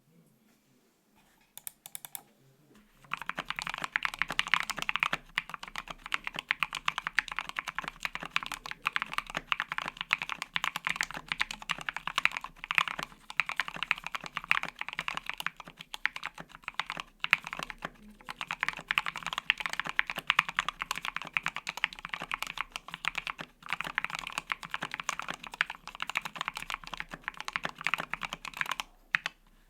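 Fast, continuous typing on a Nibble 65% mechanical keyboard with lubed Tealios V2 linear switches on an FR-4 plate, with no case or plate foam. A couple of single key clicks come just before two seconds in, then steady typing runs from about three seconds in until just before the end.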